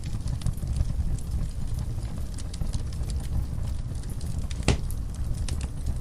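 Logs burning in a fireplace: a steady low rumble of the flames with frequent small crackles and pops, and one louder pop about four and a half seconds in.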